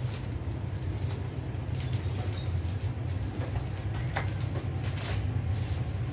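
Shop ambience: a steady low hum with a few brief, faint clicks and rustles.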